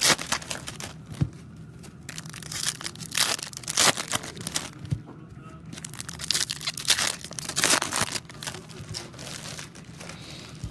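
Foil trading-card pack wrappers crinkling and tearing in irregular bursts as Topps Chrome packs are opened and the cards handled.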